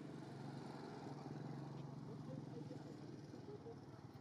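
A faint, steady low engine hum that eases off slightly toward the end, with a few faint short chirps in the middle.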